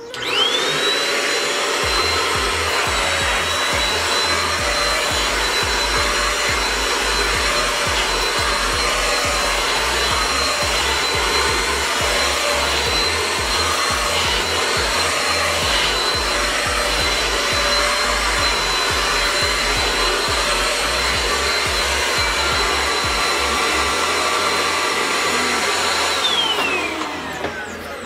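Mondial Cyclo 2-in-1 stick vacuum cleaner's motor switching on with a quick rising whine, then running at a steady high pitch as it is pushed over a shaggy rug. Near the end it is switched off and winds down with a falling whine.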